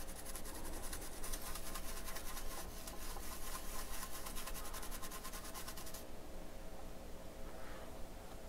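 Rapid rubbing strokes on a circuit board as solder flux and corrosion are scrubbed off a freshly repaired via. The strokes stop about six seconds in, over a faint steady hum.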